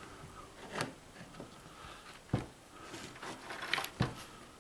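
Handling noise: multimeter test-lead probes and a small battery clicking and knocking against a wooden board. There are a few scattered taps, with the two sharpest about halfway through and just before the end.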